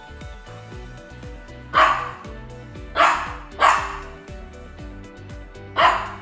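A dog making four short, sharp, loud sounds over steady background music: one, then a quick pair, then one more near the end.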